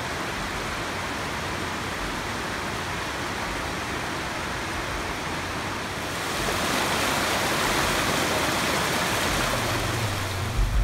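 Shallow creek rushing and splashing over a rock bed, a steady rush of water that grows louder about six seconds in.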